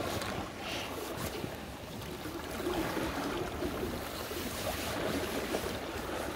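Shallow river current rushing and lapping steadily around the legs of a wading angler, with a low rumble of wind on the microphone.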